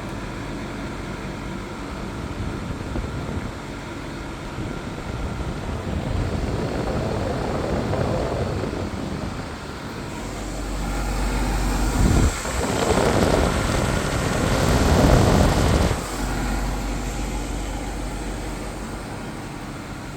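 Reiwa CP-1201RB portable air conditioner running with a steady fan hum. A louder rushing of air swells from about ten seconds in and cuts off abruptly around sixteen seconds.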